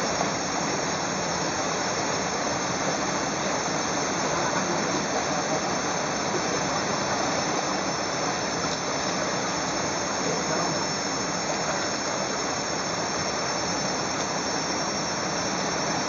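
Shallow river rushing over rocks: a steady, even rush of water, with a steady high-pitched whine running over it.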